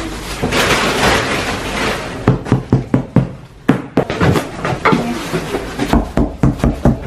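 Plastic bags and cardboard rustling, then a run of irregular knocks and clatters as boxes and stored things are shifted about.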